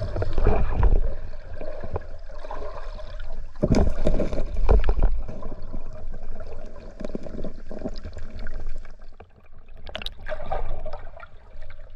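Water gurgling and bubbling around a diver underwater, with a few irregular knocks and surges.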